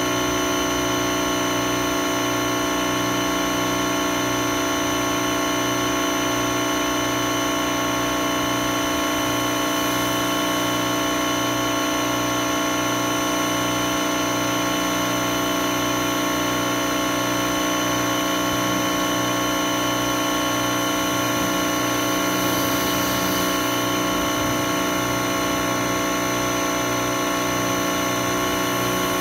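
Pressure washer running steadily, its motor and pump humming with a regular low pulse, while the water jet sprays onto the car's bodywork.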